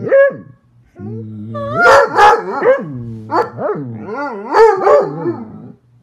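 A hound howling and baying in long calls whose pitch rises and falls, after a short call at the start, with a few louder peaks along the way.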